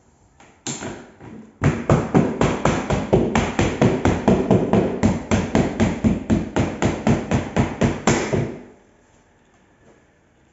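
A single knock, then about a second later a fast, even run of hammer blows against a window frame, about four a second for some seven seconds, stopping suddenly.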